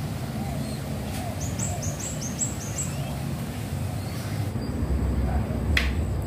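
A small bird gives a quick run of about six high chirps about a second and a half in, over a steady low rumble that grows stronger toward the end, with a single sharp click near the end.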